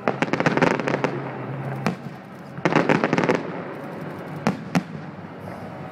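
Fireworks display: a rapid volley of sharp bangs right at the start, another about two and a half seconds in, and single bangs in between and twice near the end.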